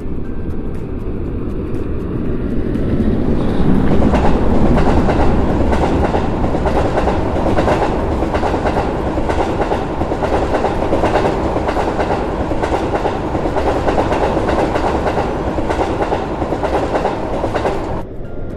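A train passing at speed, its wheels clicking steadily over the rail joints. It swells over the first few seconds, then cuts off suddenly near the end.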